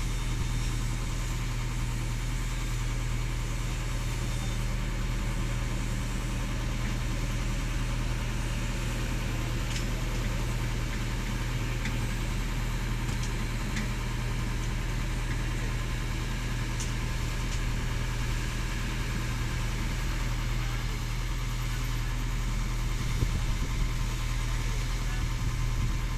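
Excavator diesel engine running steadily, a low even drone with no revving.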